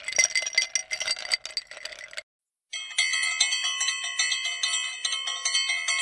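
Bright bell-like chiming sound effects: a quick glittering jingle that stops about two seconds in, then after a short break a fast run of ringing chime strikes.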